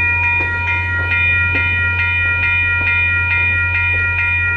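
Railway level-crossing warning bell ringing steadily with the gates down, a rapid, even ring of about two and a half strokes a second, over a steady low hum.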